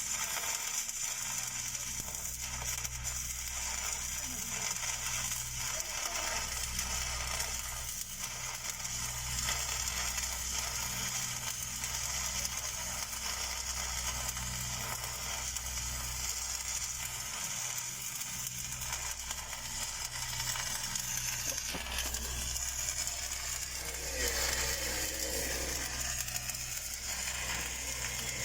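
Stick (SMAW) welding arc crackling and sizzling steadily as an electrode is run downhill on a large steel pipe, over a low steady hum.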